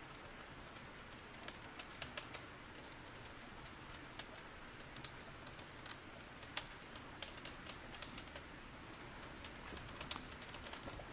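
Burning firewood crackling: irregular sharp pops and snaps over a steady soft hiss.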